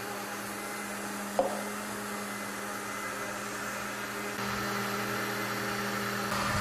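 Countertop blender running steadily, mixing warm milk, sugar, egg, dried yeast and oil into a liquid batter: an even motor hum that gets a little louder about four and a half seconds in. One short knock about a second and a half in.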